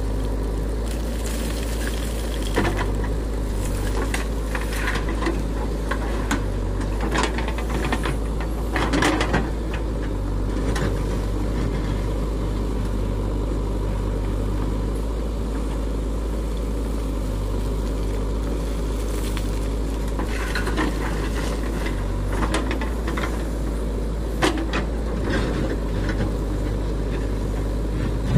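JCB 3DX backhoe loader's diesel engine running steadily, with scattered clanks and scrapes as the backhoe bucket digs into earth and gravel.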